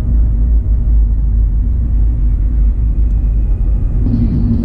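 Car driving on a tarred road, heard from inside the car: a loud, steady low rumble of road and engine noise.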